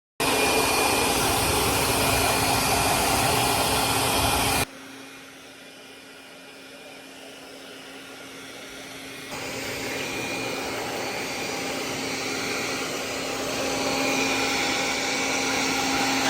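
Hand-held hair dryer running with a steady blowing whir. It is loud at first, drops abruptly about four and a half seconds in, and comes back louder about nine seconds in.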